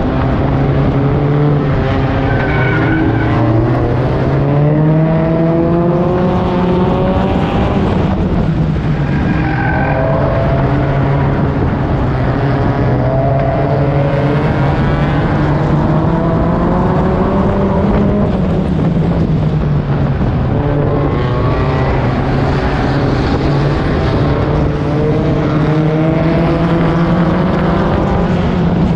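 Four-cylinder figure-8 race car engine running hard at close range, a steady drone with pitch climbing again and again as it accelerates and falling as it lifts. The engines of the surrounding pack of cars run along with it.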